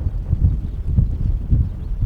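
Wind buffeting the microphone: an uneven low rumble that swells and dips in gusts.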